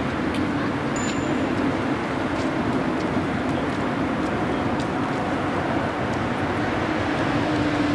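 Container freight train rolling past, a steady rumble of wheels on rail with faint clicks now and then.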